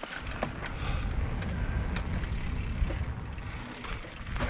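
Steady low wind rumble on the microphone, with a few faint clicks and rattles.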